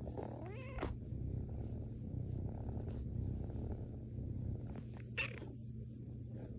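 Kitten purring steadily as her head is stroked, a contented purr, with one short rising meow just under a second in. A brief sharp sound comes about five seconds in.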